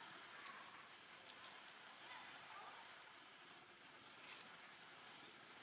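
Faint, steady high-pitched chirring of insects in the forest.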